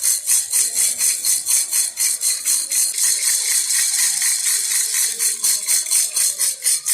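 A baby rattle being shaken in a steady rhythm, about five shakes a second, with a bright, hissy jingle of beads. Around the middle the shakes blur together into a more continuous rattle before the beat returns.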